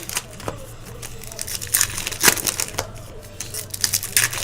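Foil trading-card pack wrappers crinkling and cards being handled, giving an irregular series of sharp crackles and snaps.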